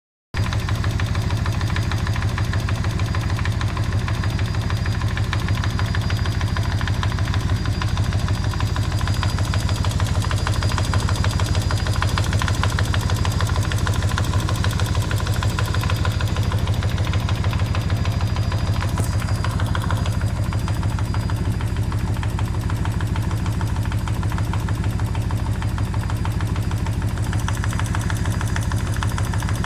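Kawasaki VN2000's big V-twin idling steadily, with a dull knock from the left side in the clutch area. The owner finds that the knock stays with the clutch lever pulled in and goes away when first gear is engaged.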